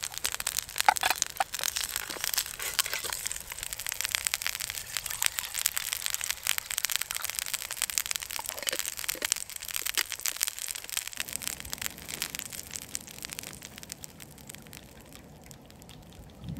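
Dense, irregular crunching and crackling that thins out and fades over the last few seconds.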